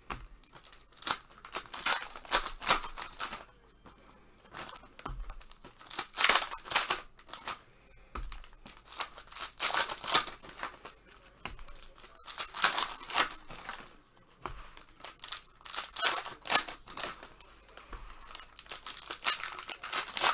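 2019 Panini Prizm Basketball retail card pack wrappers being torn open and crinkled, in irregular bursts with short pauses between them.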